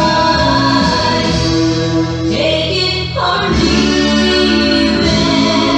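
Recorded song playing: singing over a backing band, at a steady level.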